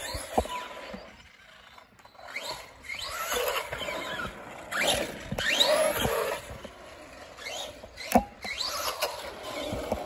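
Electric RC monster truck (an Arrma Senton converted to Big Rock) driving on asphalt. Its motor whine rises in pitch again and again as it accelerates, under tyre noise. There is a sharp knock about eight seconds in.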